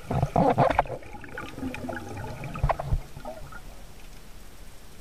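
Underwater sound of a diver finning along: water rushing and bubbling past the camera, loudest in the first second, with two sharp knocks just before three seconds in.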